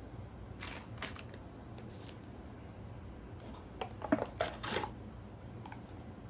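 Light handling noises: scattered clicks and short rustles over a low steady hum, with a busier run of clicks and rustling about four seconds in.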